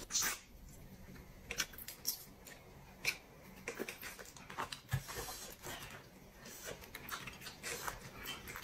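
Eating boiled crawfish: faint, scattered short clicks and crackles of shells being cracked and peeled by hand, with mouth sounds of chewing.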